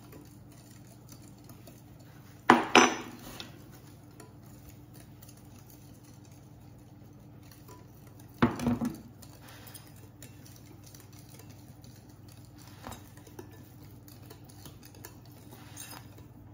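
A metal spoon clinking against a glass mixing bowl while flour is spooned into batter: two quick double clinks about six seconds apart, then a few light taps, over a faint steady hum.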